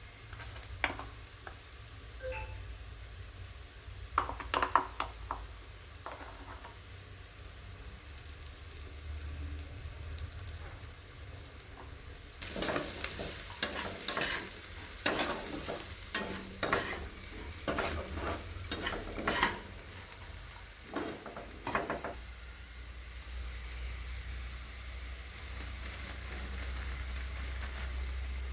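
Fried rice frying in a pan with a steady sizzle. The spatula scrapes and knocks against the pan: a few strokes early on, then a quick run of them in the middle as the rice is stir-fried.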